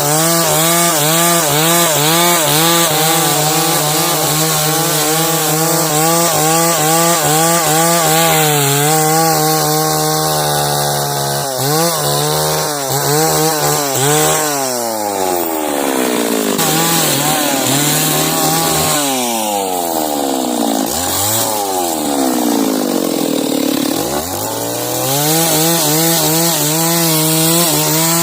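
Chainsaw ripping lengthwise through a log at high revs under load. About halfway through, the engine pitch drops and climbs again several times as the throttle is eased off and opened, then holds steady at full cutting speed near the end.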